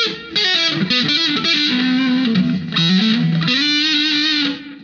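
Electric guitar played through a distortion patch on a MOWA GE100 multi-effects unit with the noise gate on: a quick run of single distorted notes, then a held note that fades out near the end, with no hum left behind it.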